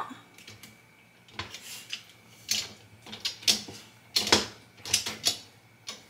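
Wire upper rack of a dishwasher being jiggled in its slide rails while someone tries to remove it, giving a string of irregular sharp metal clicks and rattles; the rack does not come free.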